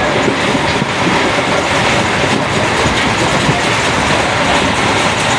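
Passenger train running along the track, heard from inside a carriage: a steady rumble of wheels on rail with scattered clacks.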